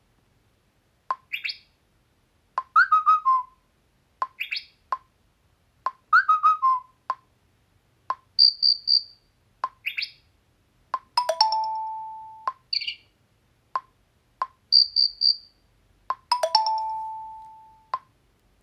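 Xiaomi Redmi 9A notification tones previewed one after another: a string of short electronic chirps, trills and chimes, each just after a brief click. Two of the chimes end in a ringing tone that fades out over about a second and a half.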